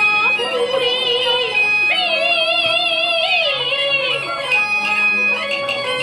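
Chinese opera singing: a high voice sung with a wide, wavering vibrato over a traditional instrumental accompaniment, the strongest phrase coming in the middle.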